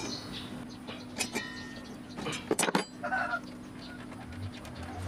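A few sharp metal clinks and knocks as a table saw's blade and arbor nut are worked loose by hand and with a wrench, the loudest about two and a half seconds in.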